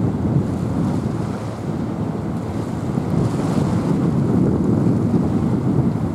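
Wind rumbling on the microphone over the noise of the sea.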